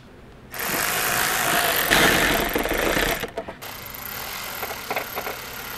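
Handheld power tool running while the snorkel's band clamps are torqued down: a loud mechanical whirr and rattle that starts about half a second in, breaks briefly about three seconds in, then runs on more quietly before cutting off.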